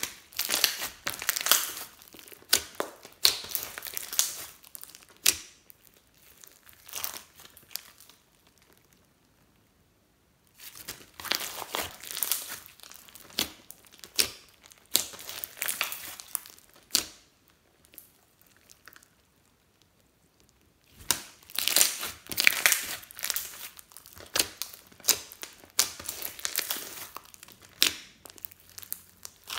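Hands kneading and pressing a lump of bead-filled pink slime, which crackles and pops as it is squeezed. The crackling comes in three spells of several seconds each, with quiet pauses between them.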